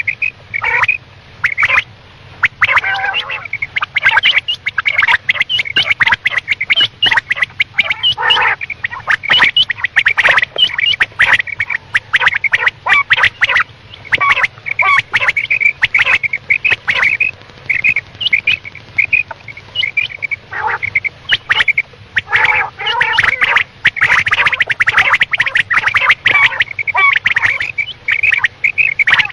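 Quail calling: rapid, near-continuous strings of short, high chattering calls with only brief pauses.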